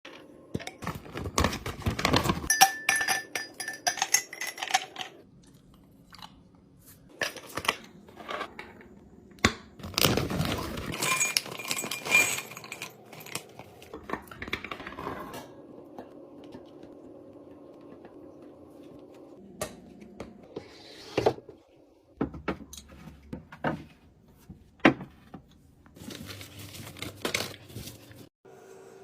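Food packaging being handled: crinkling and tearing plastic wrappers, with clinks and knocks as containers are picked up and set down, in irregular bursts.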